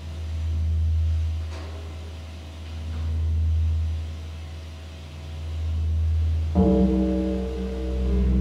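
Modular synthesizer playing a deep bass drone that swells and fades about every two and a half seconds. A sustained chord of steady tones comes in over it about six and a half seconds in.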